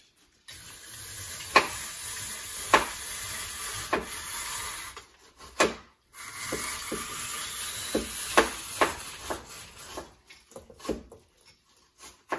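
Peeled green papaya being grated on a handheld metal grater over a pot: a steady scraping rasp in two long stretches with a short pause between, broken by sharp knocks every second or so, then a few scattered clicks near the end.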